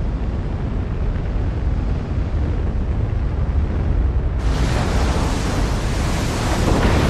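A deep, steady rumble of a huge mass of water, then about four seconds in a sudden loud rush of churning water and spray as a giant wave lifts a spacecraft.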